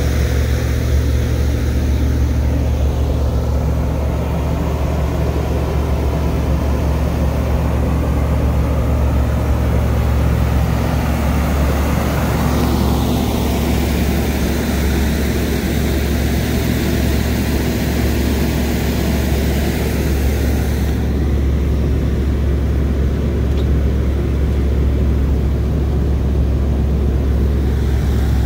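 1979 Corvette's carbureted V8 engine idling steadily, a constant low rumble while the idle settles after starting.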